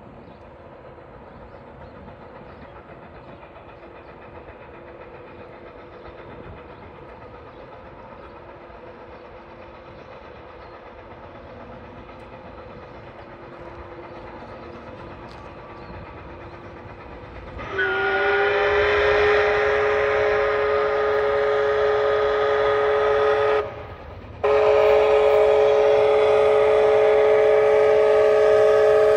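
Canadian Pacific 2816's steam whistle blowing loud, long blasts of several tones at once. The first blast lasts about six seconds and stops briefly, then a second long blast follows. Before the whistle there is only a faint distant rumble.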